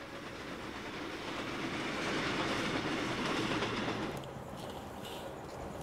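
Passenger train running past on the rails, its rushing wheel-and-track noise swelling to a peak and then dropping away sharply about four seconds in.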